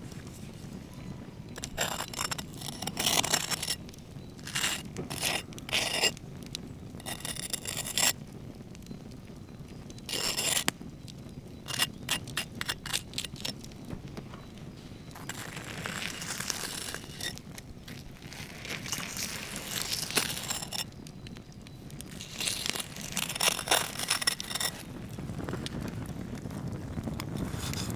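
Crisp breaded crust and open wood fire crackling and scraping in short bursts every second or two. Near the end a large knife starts sawing into the crunchy crust.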